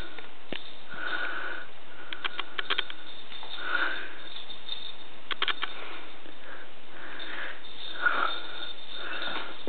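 Soft breathy sniffing sounds repeating about once a second, with two short runs of light clicks, about two and five seconds in.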